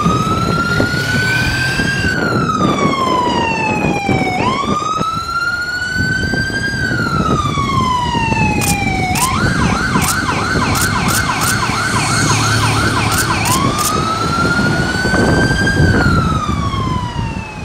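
Police escort siren. It wails slowly up and down twice, switches to a fast yelp for about four seconds, then goes back to the wail, with vehicle engines rumbling underneath.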